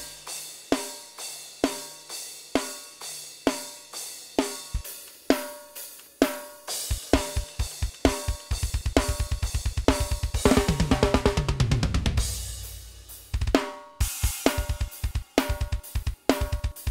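Raw, unmixed isolated drum tracks from a metal recording: steady snare hits with cymbals, then from about halfway a fast double-kick run, a tom fill falling in pitch, and a driving kick-and-snare beat near the end.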